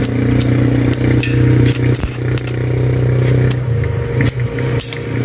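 A steady low mechanical hum with sharp clicks and knocks scattered through it.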